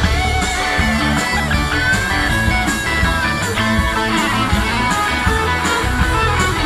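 Rock band playing live with no singing: an electric guitar lead line with bent notes over bass guitar and drums with steady cymbal hits.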